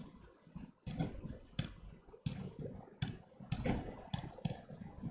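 Computer mouse clicking, about seven separate sharp clicks at an uneven pace.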